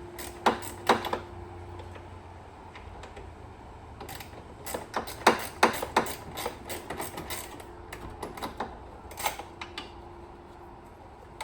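Hand tools and car parts clicking and clattering in irregular bursts as the intercooler is unbolted and pulled out, with a faint steady hum under parts of it.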